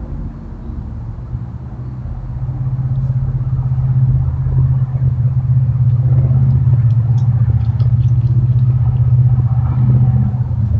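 A low, steady mechanical rumble from a nearby running machine, building over the first few seconds and then holding steady and loud.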